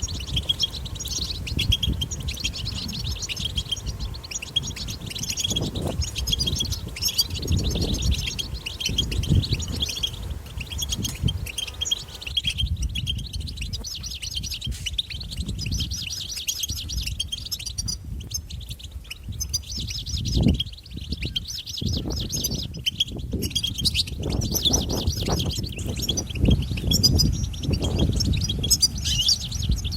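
European goldfinches singing a fast, unbroken twittering, chattering song, with a low rumble underneath.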